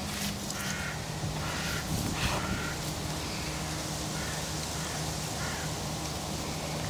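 Harsh, crow-like bird calls: three short calls in the first few seconds and two fainter ones later, over a steady low hum.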